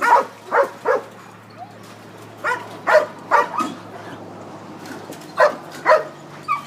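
Dog barking repeatedly in short sharp barks, grouped in quick runs of two to four with brief pauses between runs.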